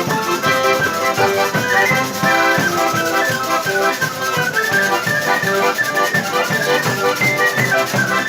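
Instrumental music: a busy melody over a steady rhythm of quick percussion strokes.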